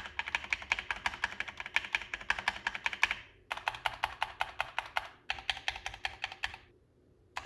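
Fast typing on a DeepCool KG722 65% mechanical keyboard with Gateron Red linear switches in an all-plastic case: dense runs of rapid keystrokes in three bursts with brief pauses between them, then a gap of nearly a second before typing starts again at the very end.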